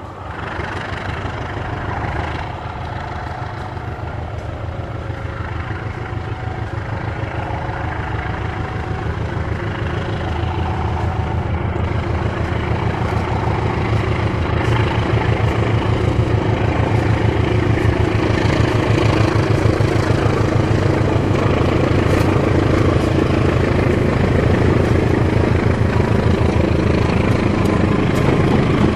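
CC 201 diesel-electric locomotive's engine running with a fast, even throb, growing steadily louder as the locomotive comes closer.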